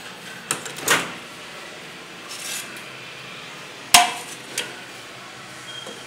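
A ceramic plate clattering as it is set into a microwave oven, then a sharp knock about four seconds in as the microwave door is shut, and a short electronic beep from the keypad near the end.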